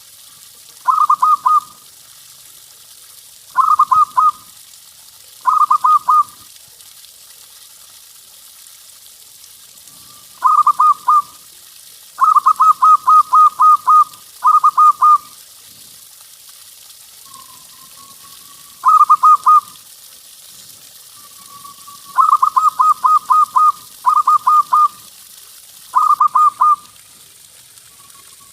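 Zebra dove (perkutut) cooing: short phrases of quick, rolling notes, repeated every second or two, some phrases longer with many notes in a row, over a steady faint hiss.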